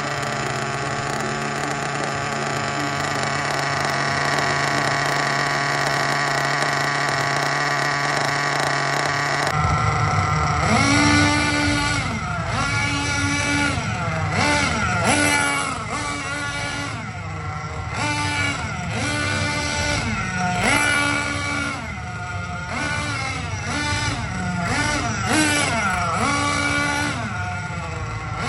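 Hobao Hyper SS nitro RC buggy engine running at a steady pitch for about the first ten seconds, then blipped over and over, its pitch rising, holding and falling back roughly every second and a half.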